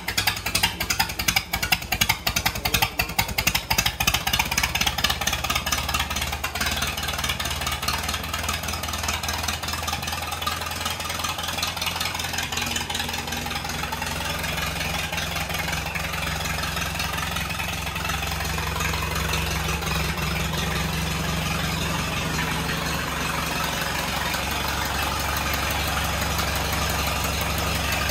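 1937 Allis-Chalmers WC tractor's four-cylinder engine running, uneven and louder for the first few seconds, then settling into a steady idle.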